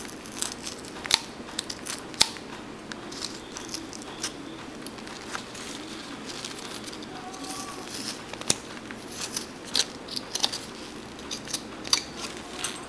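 Carving knife cutting small chips out of a wooden figure: irregular crisp snaps and short scraping cuts as the knife point works wood out from a tight spot.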